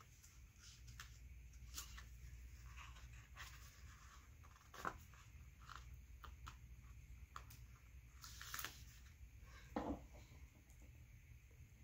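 Near silence with faint, scattered ticks and paper rustles: metal tweezers picking foil letter stickers off a sticker sheet and pressing them onto a paper planner page, with a few slightly louder taps.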